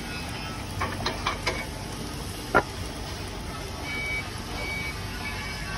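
Wooden press boards knocking against a slotted stainless-steel fruit-press basket as they are fitted into it by hand. A few light knocks come about a second in, then one sharp knock. Near the end, faint short beeps repeat about once a second.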